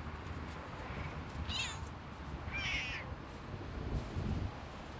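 Stray cats squabbling: two short, high, wavering cat cries about a second apart, the first about one and a half seconds in.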